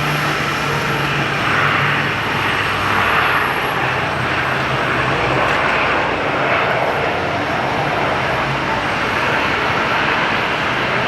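Aircraft engine noise, steady with slight swells about two and six seconds in.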